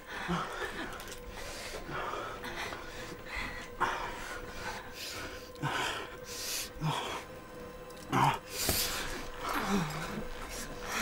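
Heavy breathing in short gasps, about one every second or so, some with a brief low moan.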